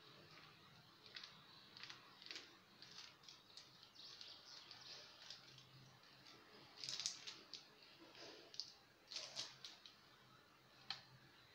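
Faint scraping and swishing of a spatula spreading whipped cream across a sheet of génoise sponge on parchment paper, in irregular strokes. There are a few louder scrapes about seven and nine seconds in, and a sharp click near the end.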